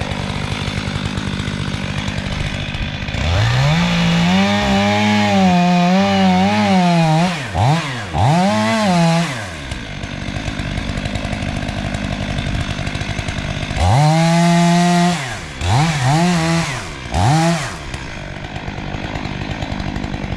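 Two-stroke chainsaw idling, opened up to full throttle for a few seconds twice, the pitch wavering while high. Each run is followed by a couple of quick throttle blips before it drops back to idle.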